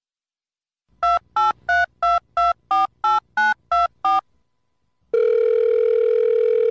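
Phone keypad dialing a number: ten short touch-tone (DTMF) beeps at about three a second, each a different pitch pair. About a second later a loud steady tone starts on the line as the call rings through.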